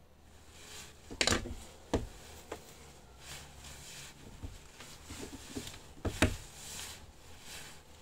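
Handling sounds: a few sharp knocks, the loudest about a second in and again near six seconds, with light rustling between them.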